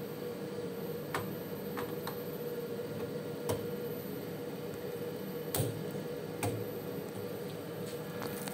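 Steady hum of laboratory equipment, with a handful of light clicks at irregular moments.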